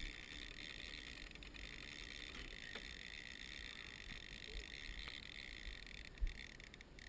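Faint, steady running of a fishing boat's outboard motor, with one short knock about six seconds in.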